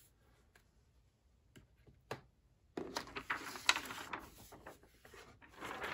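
A couple of light clicks, then from about three seconds in the crinkling rustle of a thin paper sheet being lifted off the accessory tray of the tablet's box.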